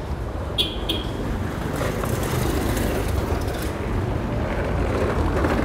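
Street traffic: a steady low rumble, with a vehicle passing about two to four seconds in and a brief high squeak just under a second in.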